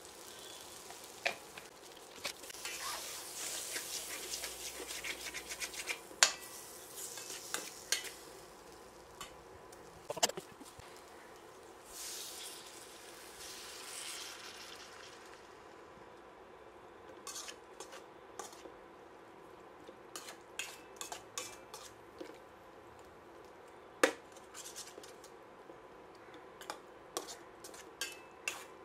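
A metal spoon stirring okra and onion masala in a steel pan, scraping and clinking against the pan, with the frying masala sizzling for about the first half. Later on the hiss fades and sharp clinks of the spoon on the pan come in quick runs.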